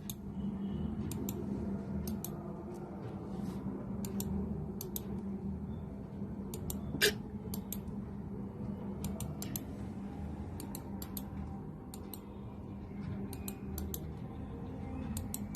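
Irregular light clicks from a laptop's keys and touchpad being pressed, often in quick pairs, with one sharper knock about seven seconds in, over a steady low hum.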